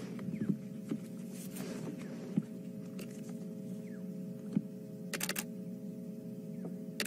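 A steady low hum with a few steady tones, broken by scattered sharp clicks, including a quick run of clicks about five seconds in.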